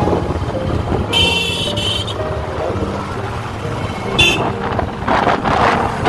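Royal Enfield Classic 350's single-cylinder engine running under way in traffic, with a vehicle horn honking for under a second about a second in and a shorter toot about four seconds in. Wind buffets the microphone near the end as the bike picks up speed.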